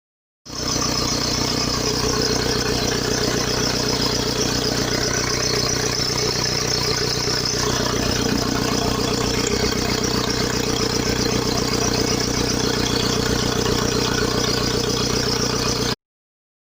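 Opel Y20DTH 2.0 four-cylinder turbodiesel idling steadily, running on its repaired Bosch PSG16 injection pump control valve. The sound starts about half a second in and cuts off abruptly near the end.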